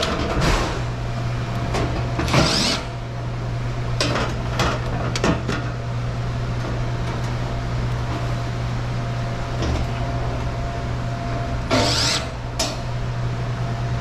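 Cordless Milwaukee impact driver run in three short bursts, driving screws, with metallic clicks and clatter between them, over a steady low hum.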